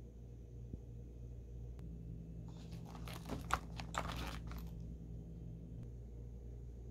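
Crinkly rustling of a cosmetic pouch's fabric lining and mesh pocket as a hand handles it, lasting about two seconds in the middle, with a couple of sharper clicks.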